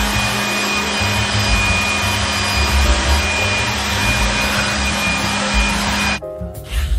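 Vacuum cleaner running with a steady rushing whoosh over a low hum, cutting off suddenly about six seconds in.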